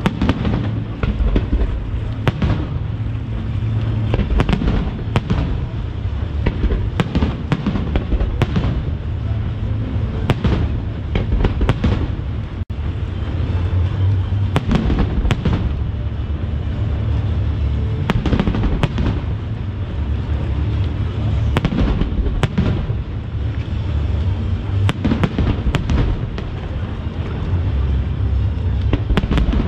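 Aerial firework shells bursting one after another in a dense barrage: many sharp booms and cracks, often several a second, over a continuous low rumble.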